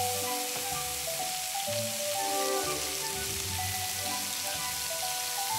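Thin slices of beef brisket (chadolbagi) sizzling on a hot grill pan, with a steady hiss, under background music of held notes.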